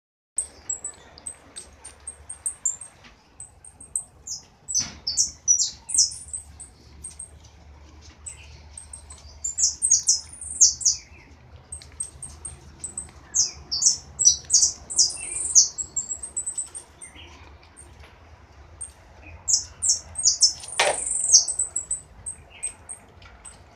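A small caged songbird singing in repeated phrases of high, quick chirps and trills, with a brief, louder and lower sharp sound about 21 seconds in.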